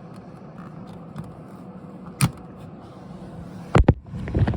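The latches and lid of a leather briefcase being worked open: a single sharp click, then two quick clicks about a second and a half later followed by handling knocks. Under it is a steady low hum from the running computer's fans inside the case.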